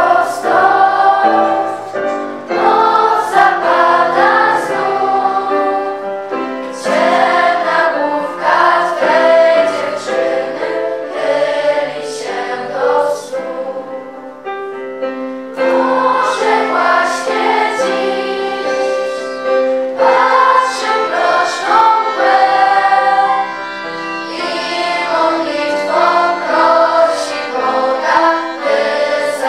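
A choir singing a sacred song in long held notes, with a brief lull about halfway through.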